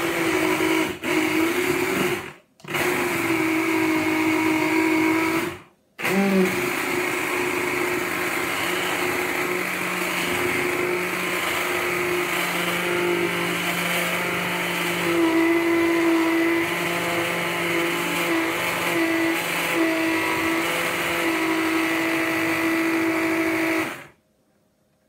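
Stick hand blender running in a measuring jug, blitzing oats, yogurt and egg into a thick waffle batter. It stops briefly twice in the first six seconds, then runs steadily for about eighteen seconds and cuts off near the end.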